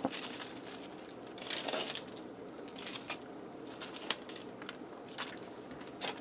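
Crisp raw cabbage wedges crunching and rustling as they are handled and pressed down into a pot of tomato broth: a longer crunch about a second and a half in, then several short crackles.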